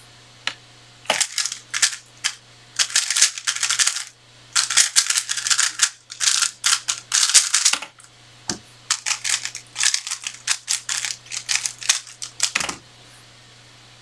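3x3 speedcube being turned very fast: rapid clicking and clattering of the layers, in several bursts with short pauses between them. Two sharper knocks stand out, about eight and a half seconds in and near the end.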